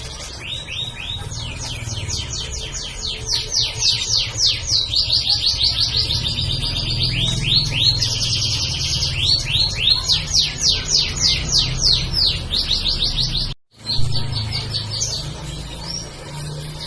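Domestic canary singing: long trills of rapid, evenly repeated down-slurred notes that change pace and pitch from phrase to phrase. The song cuts out for an instant about two-thirds of the way through, then carries on.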